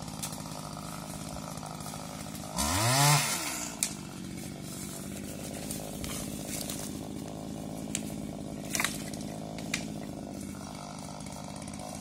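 Petrol pole saw engine idling, revved up once about three seconds in and dropping straight back to idle. A few short sharp clicks come later.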